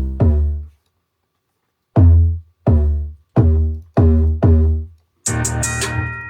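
A hip-hop beat in production: the playback stops, then five deep bass notes are played one at a time, each sliding down in pitch as it starts and fading out, before the full beat with drums comes back in near the end.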